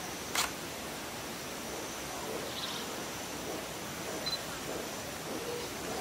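Steady background hiss with one sharp camera shutter click about half a second in, and a brief faint high peep a little after four seconds.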